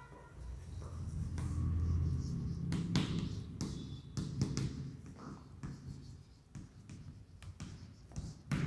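Chalk writing on a chalkboard: a run of short taps and scratchy strokes as a word is written out. It starts after a low dull rumble in the first couple of seconds.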